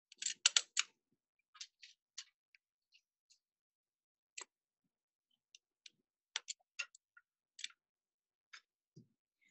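Small metal clicks and clinks from steel latch needles and hanging bars being set by hand into the slots of a circular sock knitting machine's cylinder. A quick run of clicks in the first second, then single, irregular clicks.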